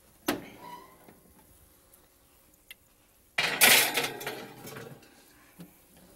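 A wall oven door is pulled open with a sharp clunk, then about three seconds in a glass baking dish is set onto the metal oven rack with a loud scraping rattle lasting about a second and a half.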